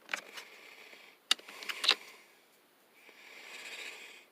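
Sockets and their plastic case being handled: a few sharp clicks a little after a second in, then a soft hiss near the end.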